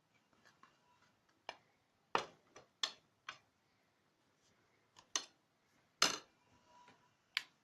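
Kitchen utensils tapping and clinking against a bowl while handling a spice mix: about nine sharp, separate clicks at uneven intervals, the loudest about six seconds in.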